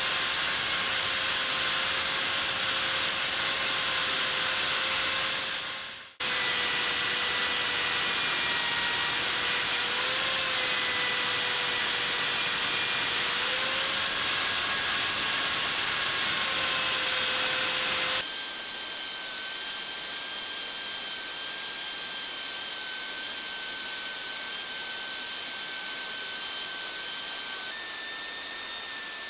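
Small electric power tool running steadily, a motor whine over a hiss, its pitch wavering slightly as it takes load. It fades out briefly about six seconds in and starts again, and about 18 seconds in it changes abruptly to a higher, thinner whine.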